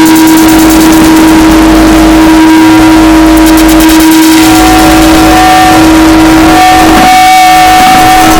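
Harsh noise music: a dense, distorted wall of noise at full level, with a steady droning tone held throughout. A second, higher tone joins about halfway, and the texture briefly thins near the end.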